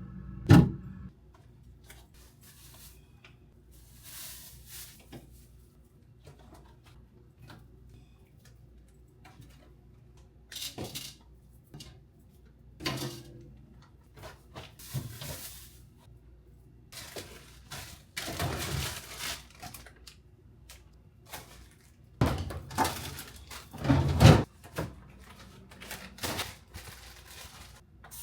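Scattered knocks, clunks and rustling of containers, shelves and the fridge door being handled while a refrigerator is emptied and cleaned. There is a sharp knock right at the start and a loud cluster of knocks near the end.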